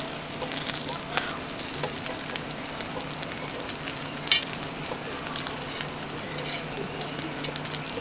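Potato pancake frying in oil on a griddle, sizzling steadily with scattered crackles and one sharper pop about four seconds in.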